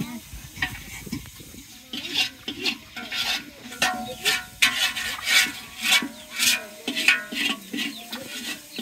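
Stirring in a cooking pot: a run of rough scrapes, about two a second, starting about two seconds in.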